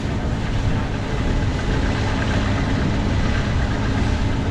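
Heavy farm-machinery engine running steadily, a constant low hum under a wide mechanical rush.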